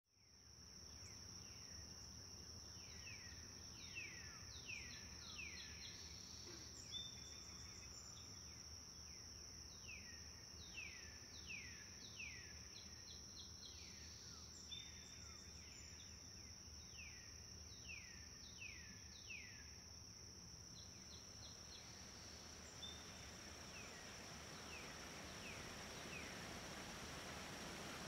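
Faint outdoor nature sound: a steady high insect trill with groups of short downward-sweeping bird calls repeated over it. A soft rushing noise swells over the last few seconds.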